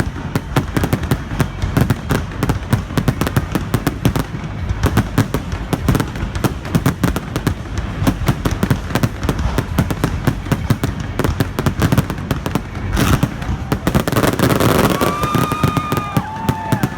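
Fireworks display: a dense, rapid crackle of many small bangs. Near the end, louder noise with a few short whistling tones.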